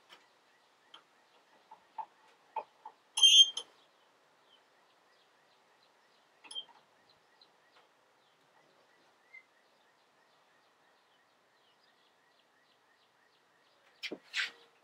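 Scattered metal clicks and taps from a steel shovel pin being handled in a bench vise, with one bright metallic clink about three seconds in and two sharper knocks near the end.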